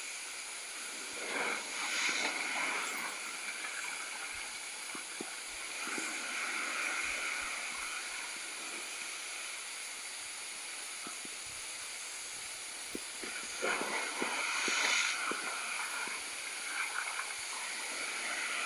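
Sea waves washing and breaking against the rocks below, a steady rush of surf that swells louder twice: about a second and a half in and again near fourteen seconds.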